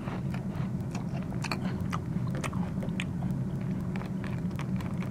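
Eating sound effect: a crunchy snack being bitten and chewed, a string of irregular short crunches.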